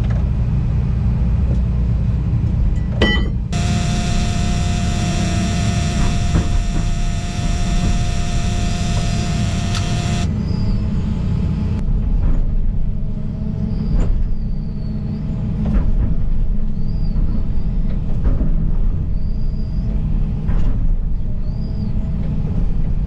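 John Deere 245 excavator's diesel engine running with a steady low rumble, heard from the cab while the machine works. There is a clunk about three seconds in, and a brighter steady hum with a held tone for several seconds after it.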